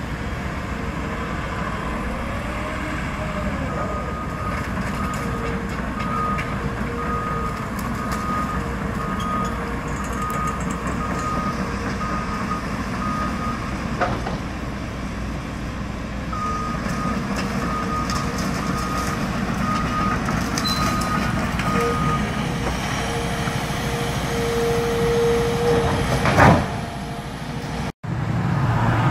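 Caterpillar excavator's diesel engine running steadily as it works demolition debris, with a backup alarm beeping in two spells. A single sharp knock about halfway through, and a brief loud rising sound near the end.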